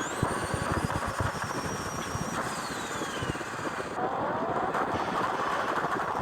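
Turbocharged engine on lift-off: a turbo whistle and the choppy flutter of compressor surge, the whistle then falling away as the turbo spools down. The engine revs up again near the end.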